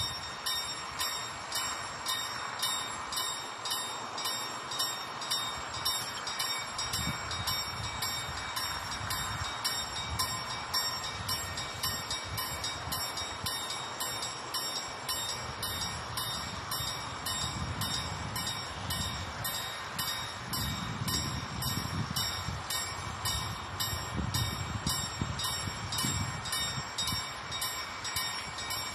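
Railway level-crossing warning bell ringing in an even rhythm of about two strokes a second, signalling an approaching train while the barriers are down. A low rumble builds underneath from about a quarter of the way in.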